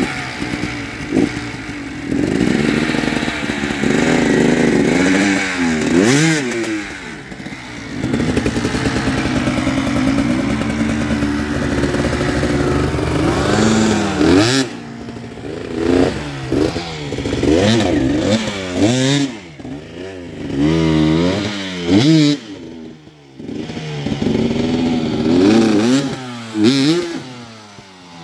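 Dirt bike engines revving in repeated bursts, the pitch climbing and dropping again and again, as the bikes are forced up a steep muddy climb, with some clatter.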